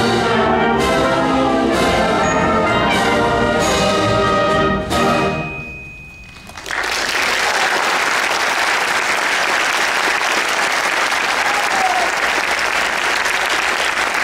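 Concert band of woodwinds, brass and percussion playing the final bars of a march on a steady beat. It stops on a closing chord about five seconds in, which rings out briefly in the hall. An audience then breaks into sustained applause.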